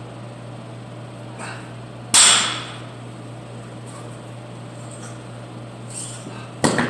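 Plate-loaded barbell with iron plates set down on a rubber gym mat: one loud clank about two seconds in, ringing briefly. Near the end comes a second, sharper double clank of iron plates being handled on the bar.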